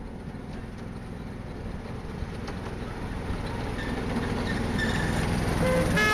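Miniature railway train running past on small-gauge track: wheels rumbling on the rails, growing louder as the locomotive and carriages come by.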